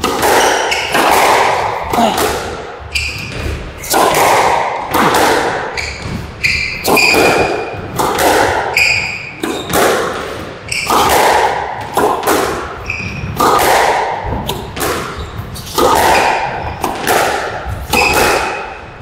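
A squash rally: the ball cracks off the rackets and thuds against the court walls again and again, echoing in the enclosed court, with short high squeaks from the players' shoes on the floor.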